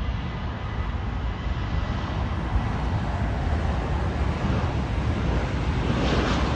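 Southwest Boeing 737's jet engines at takeoff thrust during its takeoff roll: a steady rushing noise that grows louder near the end. Wind gusts on the microphone add a low rumble.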